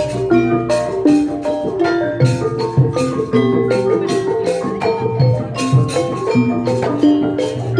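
Banyuwangi gamelan accompaniment for a barong performance: mallet-struck pitched percussion playing a busy, steady melody over repeated low drum strokes.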